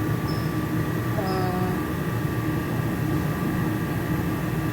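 Steady machine hum with a low drone and a faint constant whine, like an appliance fan or air conditioner running.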